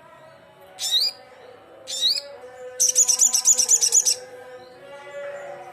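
Crimson sunbird singing: two short, high, upward-sweeping chirps about a second apart, then a rapid high-pitched trill lasting about a second and a half.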